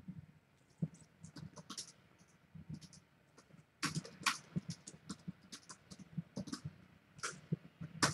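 Newborn kittens suckling at their mother cat: soft, irregular smacking and clicking, with a cluster of louder clicks about four seconds in.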